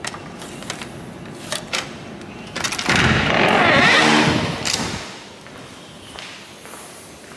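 Clicks of a key card at an electronic door lock and the door handle, then about two and a half seconds in a loud rushing, whirring noise for about two seconds as the glass door is pushed open.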